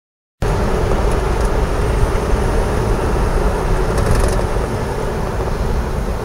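Steady car engine and road noise heard from inside the cabin while driving, cutting in suddenly about half a second in.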